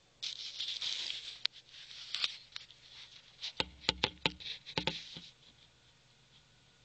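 Scuffling and scratching as a Taiwan beauty rat snake takes its prey, with a quick run of sharp knocks about three and a half seconds in; it stops about five seconds in.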